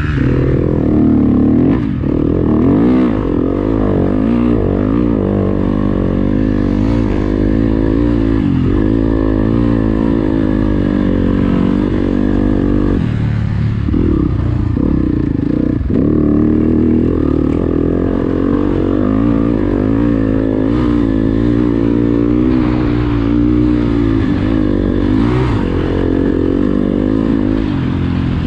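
Motocross bike engine running hard through deep sand, its revs rising and falling continually with the throttle and gear changes, with a few short drops in revs.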